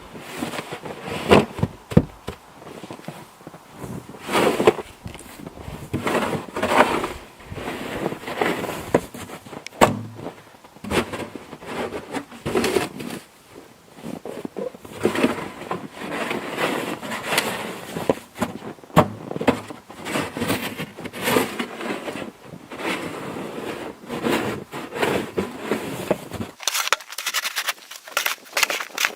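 Snow shovel scraping along a driveway and pushing snow, in repeated uneven strokes. Near the end the sound turns to quicker sharp clicks and crunches.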